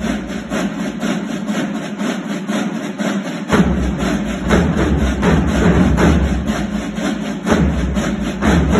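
Drumline playing marching snare drums in a fast, dense rhythm. A deeper low part comes in about three and a half seconds in.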